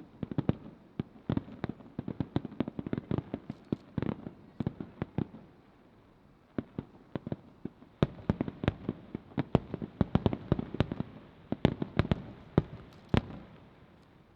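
Fireworks shells bursting overhead in rapid succession, many sharp bangs overlapping. They thin out to a lull in the middle, start again in a dense volley, and stop shortly before the end.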